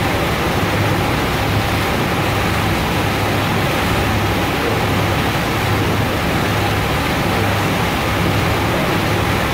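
MS Sunnhordland under way: a steady rush of wind and water with a low engine drone beneath it.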